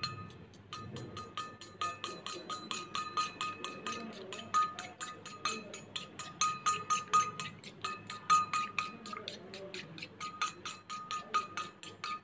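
Fork beating eggs in a stainless steel bowl: rapid clinks against the bowl, several a second, each leaving a short metallic ring.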